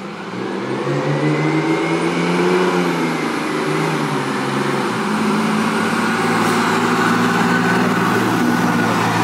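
Fire engine's diesel engine pulling out and accelerating past, a loud, steady low drone that swells over the first second.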